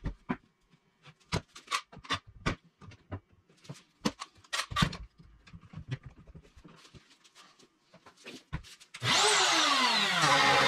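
Boards and a clamp knocked and set down on a wooden workbench, a run of sharp knocks and clatters. About nine seconds in, a handheld DeWalt router switches on and runs loudly and steadily, its whine sliding in pitch as it comes up to speed.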